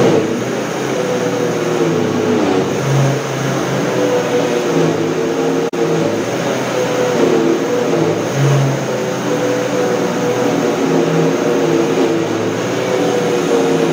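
Silvercrest SC-1589 blender running loudly, its motor and blades blending tiger nuts and water into a fine milky mixture. The whir holds steady while its pitch wobbles slightly up and down as the load churns in the jug.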